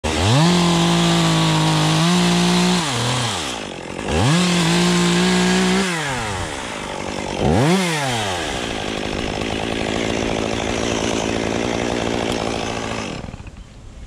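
Gasoline chainsaw revved to full throttle and held for a couple of seconds, twice, then given a short blip before dropping to a steady idle. It stops near the end.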